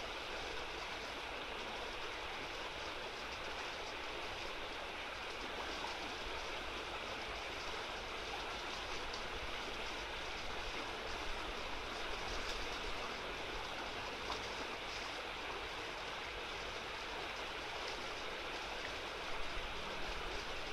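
Small river running fast over shallows, a steady rush of water, with a few light knocks near the end.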